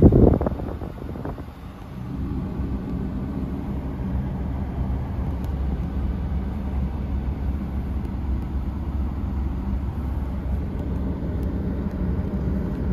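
2013 Ford Explorer's engine idling steadily in park, heard from inside the cabin. A brief loud bump comes first, and the idle settles in about two seconds in.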